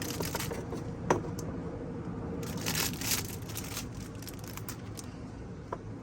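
Small handling noises while the new oil filter and its rubber gasket are being readied: a sharp click about a second in, a rustle from about halfway, and a small click near the end.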